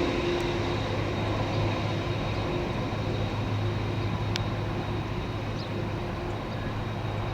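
Jet airliner engines running steadily at low power, a continuous rumble with a faint steady whine. A brief click about four seconds in.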